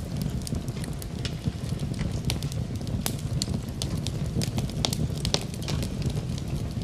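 Wood fire burning in a fireplace: a steady low rumble with frequent sharp crackles and pops at irregular intervals.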